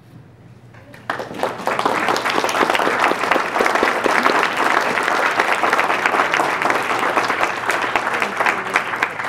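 Audience applauding, with the clapping starting about a second in and tapering off near the end.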